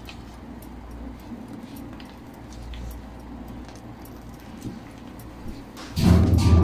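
Low, steady room noise with a few faint clicks, then a sudden loud animal call about six seconds in.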